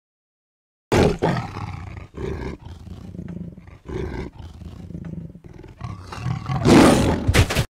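Tiger growling in a run of rough, uneven growls, starting about a second in, then a loud roar near the end that cuts off abruptly.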